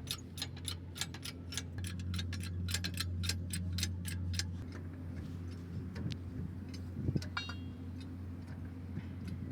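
A jack being worked to lift a loader, clicking sharply and evenly about three or four times a second, then stopping about four and a half seconds in, with a few scattered clicks after. A steady low engine hum runs underneath.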